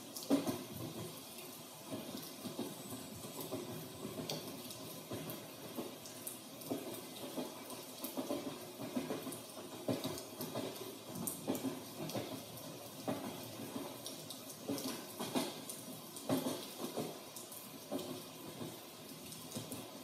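Rain recorded in a backyard, falling with many irregular drips and splashes, mixed with the sound of riding inside a moving train.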